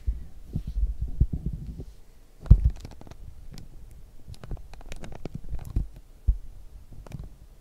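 Low thuds, bumps and light clicks of hands handling card packs and the box on a tabletop, irregular throughout, with the loudest thump about two and a half seconds in and another sharp one near the end.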